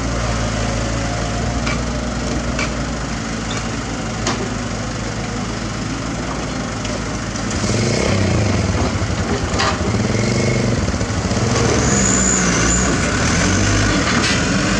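SANY SY75 mini excavator's diesel engine running under hydraulic load as it digs and loads soil. About halfway through it gets louder and its pitch rises and falls, with scattered knocks from the bucket and soil.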